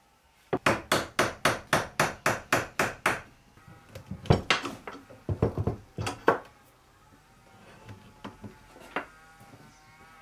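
Wooden frame joints being knocked together: a quick even run of sharp knocks, about four a second for some three seconds, then irregular knocks and clatter of wood and metal clamps as the glued frame is clamped up, with a few faint clicks near the end.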